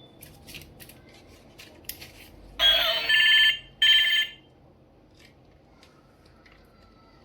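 Toy phone playing an electronic ringtone in two loud bursts about two and a half seconds in, the second a moment after the first, preceded by a few light clicks.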